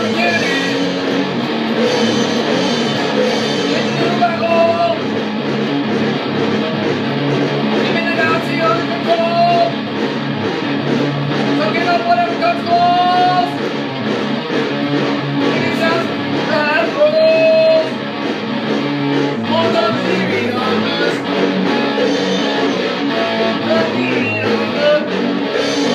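Rock song with guitar playing throughout and a voice singing at times.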